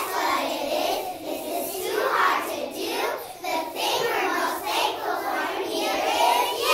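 A group of young children, a kindergarten class, singing together.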